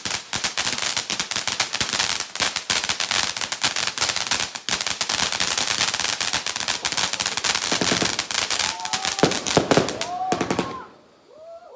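A string of firecrackers going off in a rapid, continuous crackle of sharp bangs, then stopping about a second before the end.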